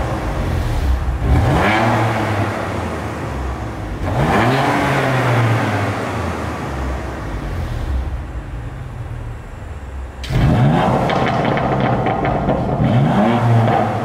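BMW M2 Competition's twin-turbo 3.0-litre straight-six on its stock exhaust, revved in place and heard from behind the car: two revs with the exhaust valves closed, then, after a sudden jump in loudness about ten seconds in, more revs with the valves open in Sport Plus mode.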